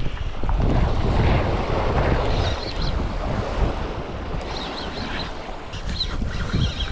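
Surf washing on a beach with wind buffeting the microphone, a steady rushing noise with a deep rumble.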